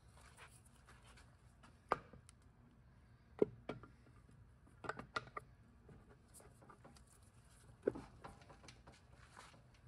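Light knocks and clunks of a cast aluminium transmission tail housing being handled and offered up to a Subaru 5EAT transmission case. There are a handful of short separate knocks a second or more apart, with a quick cluster about five seconds in.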